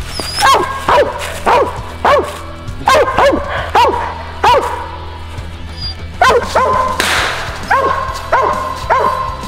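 A squirrel dog barking treed at the foot of a tree, signalling that the squirrel is up it: short, sharp chop barks about every half second, with a pause of a second or so near the middle. A low music track runs underneath.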